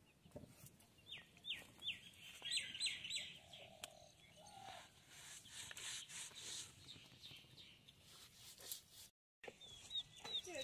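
Small bird chirping: quick runs of short, downward-sliding calls about a second in and again near the end, with faint scrapes and clicks in between.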